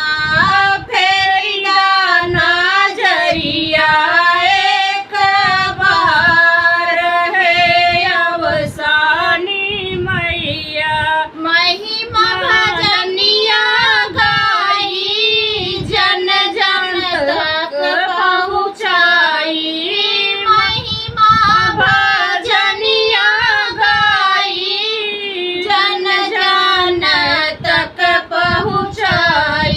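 A woman singing an Awadhi folk devotional song in a high voice, the melody held and ornamented with wavering, gliding pitch.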